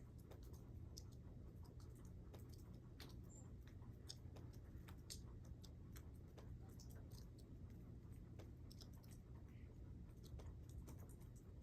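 Near silence: faint, irregular ticks and clicks, several a second, over a low steady hum.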